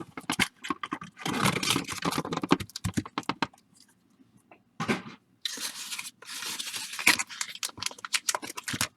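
Plastic card-pack wrapping crinkling, scraping and tearing as baseball card packs are worked free of tight packaging and opened, in bursts with a short pause in the middle.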